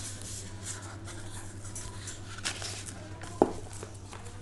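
A book and its packaging being handled: irregular soft rustles, with a sharp click about three and a half seconds in, over a steady low hum.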